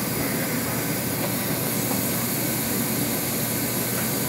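Steady city background noise: a continuous, even hum with no distinct events.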